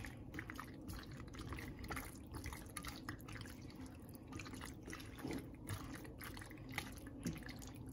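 Spatula stirring penne through a thick cream sauce in a frying pan: faint, irregular wet squelches and small clicks.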